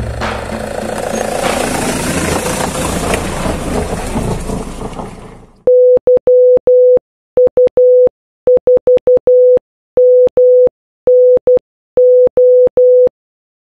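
Morse code beeps on a single steady tone spelling the amateur-radio callsign YU4MNO (-.-- ..- ....- -- -. ---). Before it, a rushing noise fades away over the first five seconds.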